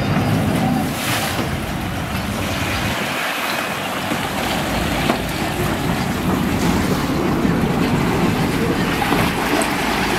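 A sportfishing boat's inboard engines running steadily as it backs into its slip, with propeller wash churning the water at the stern.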